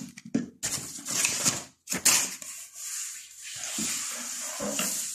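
Packaging being handled and cleared away: irregular rustling and scraping, with a sharper crackle about two seconds in, then a steadier hissing rustle.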